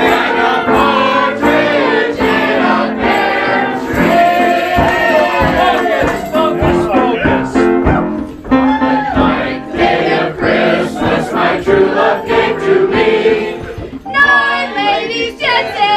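A roomful of people singing a Christmas carol together, many voices holding the notes. Near the end the singing stops and people start talking.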